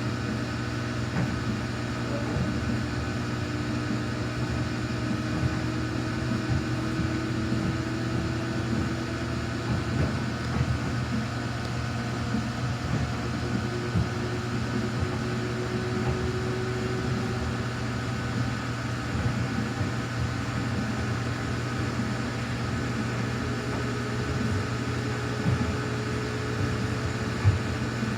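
Samsung washing machine running its quick-wash cycle: a steady motor hum with a thin whine that slowly rises in pitch, over faint ticking from the turning drum. A sharp click sounds near the end.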